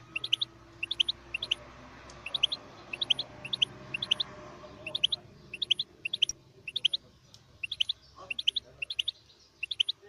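Goldfinch mule (goldfinch hybrid) giving short, sharp, high chirps in quick groups of three or four, the groups repeating roughly every half second to second with brief pauses.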